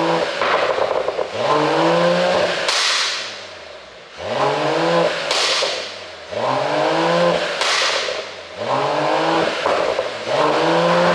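Mercedes-AMG GT 43's turbocharged inline-six revved in repeated blips about every two seconds, its pitch rising on each, then a burst of exhaust pops and crackles as the throttle closes: the overrun crackle of a pop-and-crackle ECU tune.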